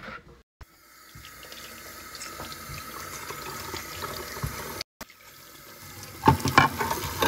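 Kitchen tap water running into a small metal saucepan in a stainless steel sink, the stream growing gradually louder. A few knocks near the end.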